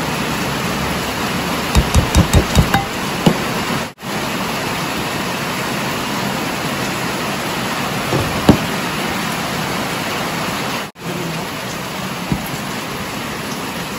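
A steady hiss throughout, with a quick run of five or six sharp knocks about two seconds in and a single knock near the middle: a plastic measuring cup tapped against a ceramic bowl to shake out glutinous rice flour. The sound drops out briefly twice.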